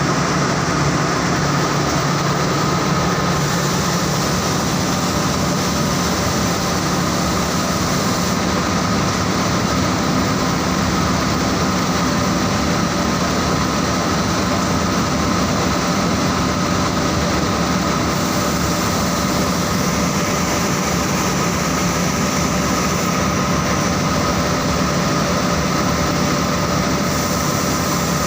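Saurer JSC 330 textile carding machine running steadily: a constant mechanical roar with a low hum and a steady higher whine.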